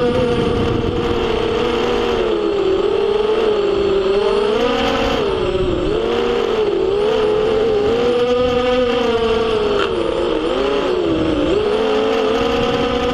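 FPV racing quadcopter's brushless motors and propellers whining, the pitch rising and falling repeatedly with the throttle.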